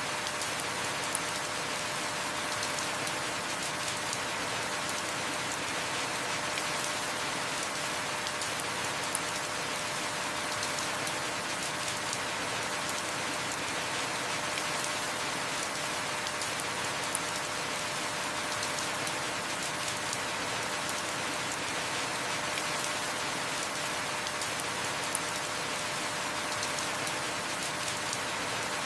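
Heavy rain falling steadily in an even hiss, with occasional sharper drop ticks every few seconds.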